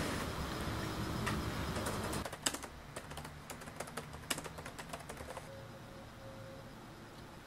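Typing on a laptop keyboard: irregular key clicks, starting about two and a half seconds in and easing off about halfway through. Before that, a low steady hum stops suddenly about two seconds in.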